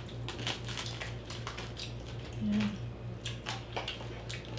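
Close-up eating sounds of roast lechon: crispy pork skin and meat being torn apart by hand and chewed, giving scattered small crackles and clicks. A brief low hum comes a little past halfway, over a steady low background hum.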